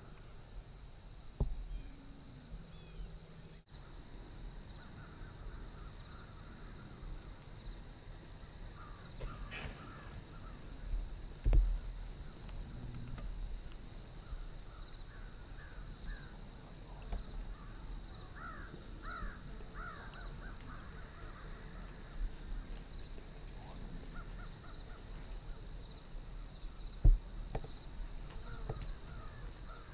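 Quiet outdoor ambience: a steady high drone like an insect chorus, with birds giving a run of short harsh calls partway through. A couple of soft knocks are heard, one near the middle and one near the end.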